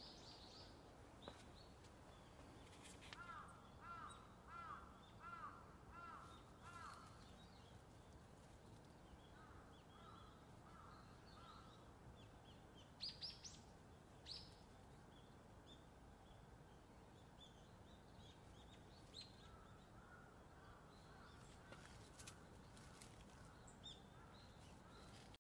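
Faint crow cawing in runs of evenly spaced caws, with a longer run early on, a shorter one a few seconds later and another near the end, over quiet outdoor background with faint small-bird chirps. A few brief sharp clicks stand out about halfway through.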